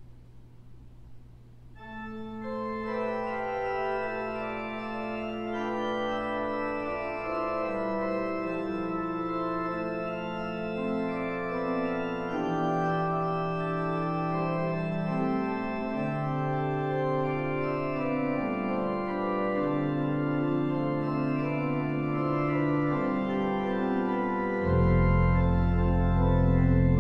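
A low steady hum, then about two seconds in a pipe organ starts playing slow sustained chords that build in layers; near the end deep pedal bass notes come in and the sound grows louder.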